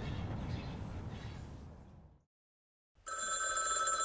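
Background hiss fades out to silence, then about three seconds in a push-button landline telephone starts ringing with a steady ring.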